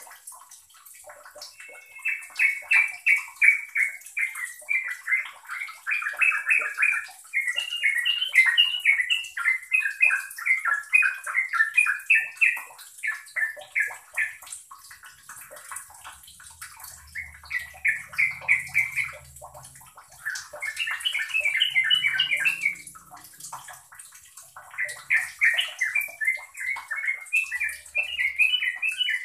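Yellow-vented bulbul (trucukan) singing in long runs of rapid, bubbling, chattering notes, in phrases several seconds long broken by short pauses.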